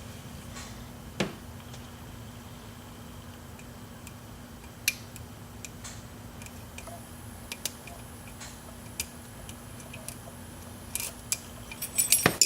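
Lock pick and tension wrench working a 5-pin CISA euro profile cylinder: sparse small metallic clicks and ticks a few seconds apart, with a louder clatter right at the end.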